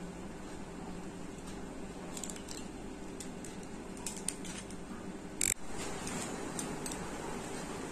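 Eggs being cracked into a glass bowl: light shell clicks and taps, with one sharp knock about five and a half seconds in. After it, a wire hand whisk clicks against the glass bowl as it starts beating the eggs.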